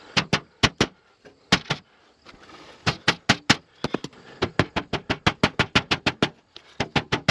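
Hammer blows: a few scattered strikes, then from about three seconds in a steady run of about three to four blows a second.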